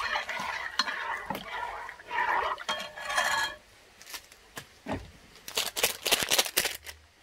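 A metal utensil scraping and stirring in a cooking pot for about three and a half seconds, then a quick run of clinks and knocks near the end.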